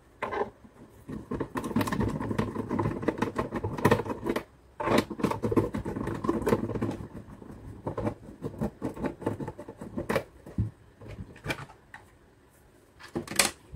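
Screwdriver turning out the screws in the plastic base of a blender: a long run of small clicks, ticks and scraping of metal against plastic, with a short pause partway through. Sparser clicks and plastic handling follow as the base cover comes off.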